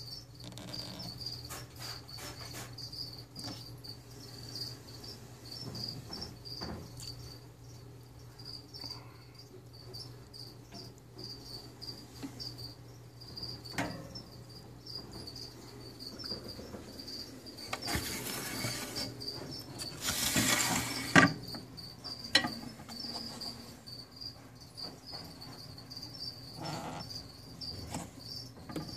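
A cricket chirping in quick, regular pulses throughout, over a low steady hum. Brief rushes of noise come about 18 and again about 20 seconds in, followed by two sharp knocks.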